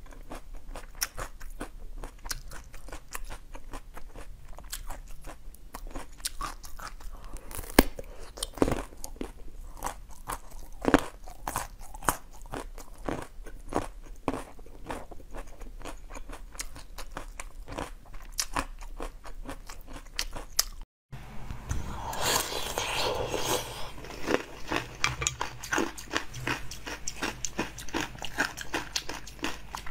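Crunching bites and chewing of a frozen green dessert bar, with scattered sharp cracks. After a sudden break about 21 seconds in, louder and denser eating sounds follow.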